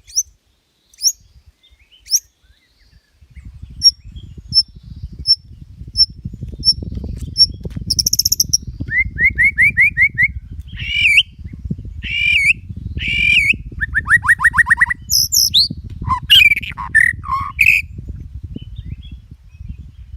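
A songbird singing: sharp high chip notes about once a second, then from about eight seconds in a rapid run of varied whistled phrases and fast trills. A low rumbling noise runs underneath from about three seconds in.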